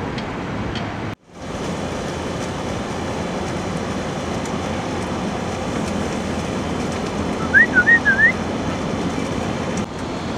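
Steady outdoor background noise, briefly cut off about a second in. Near eight seconds, four short whistled chirps rise and fall in pitch above it.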